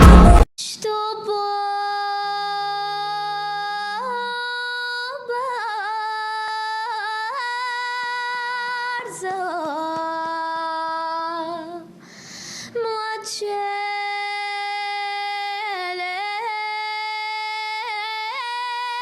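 A woman's voice singing long, held notes unaccompanied, gliding between pitches. She takes a breath about twelve seconds in.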